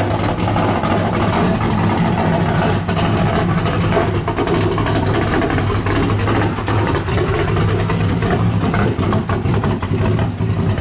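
Race car engines running steadily, a continuous loud drone with a rough, rattly edge.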